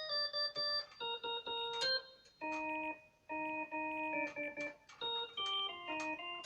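Casio CTK-3500 keyboard playing its 'Electric Organ 2' preset (tone 048): a run of chords and single notes, each held for half a second to a second, with short breaks between them.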